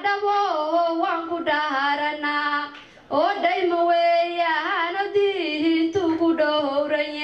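A young woman singing solo into a microphone, unaccompanied, in long held notes that bend and waver, with a short pause for breath about three seconds in.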